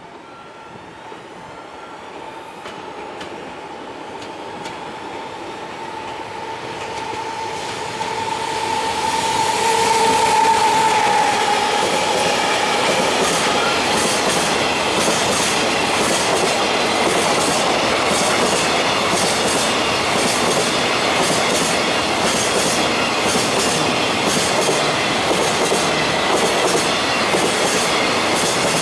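A JR Freight container train hauled by an EF200 electric locomotive draws near and passes, a steady whine growing louder until about ten seconds in. Then the container wagons roll by with a steady, regular clickety-clack of wheels over the rail joints.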